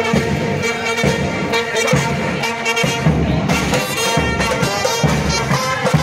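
Small street brass band playing a procession tune: saxophone and trumpets over a steady bass drum beat.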